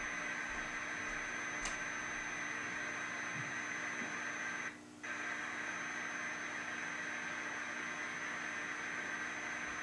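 Steady hiss of garbled static from a television speaker: the degraded audio of the 2011 national Emergency Alert System test. A faint high tone runs over it, and it drops out briefly about five seconds in.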